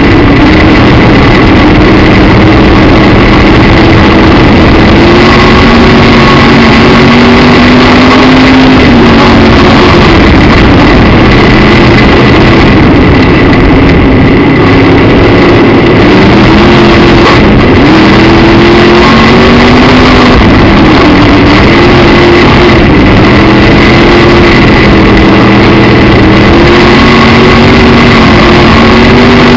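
Midwest Modified dirt-track race car's V8 engine at racing speed, heard loud from inside the car, its pitch rising and falling every few seconds as it goes around the track. A steady high whine runs under it.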